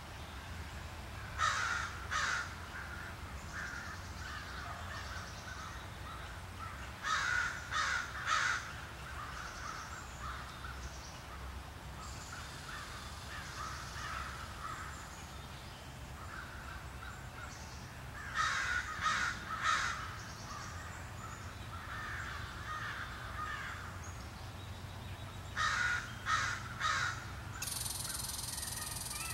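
A bird calling in runs of two or three calls, four times, with fainter calls between, over a steady low rumble. A steady high hiss begins near the end.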